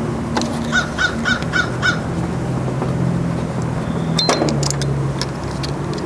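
A bird calls five times in quick succession, caw-like, over a steady low hum. A sharp click sounds about four seconds in.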